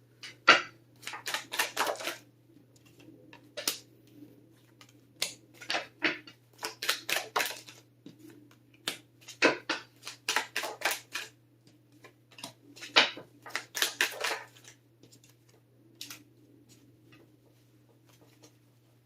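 A tarot deck being shuffled and its cards laid out on a table: several bursts of rapid crisp clicks and flicks, with single card snaps in between.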